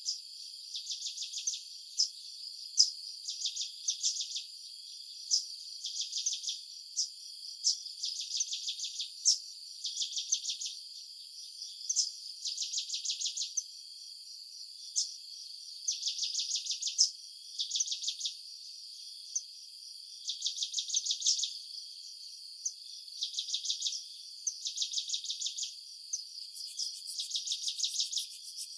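Insects chirping in trains of rapid pulses, each about a second long and coming roughly every two seconds, over a steady high-pitched insect hum, with a few short sharp chirps in between.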